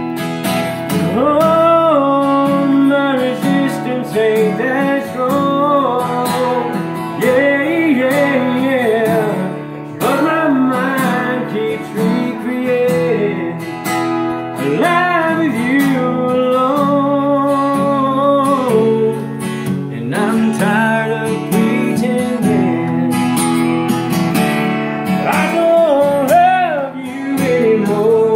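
A man singing while strumming an acoustic guitar, with long, wavering held notes in the vocal line.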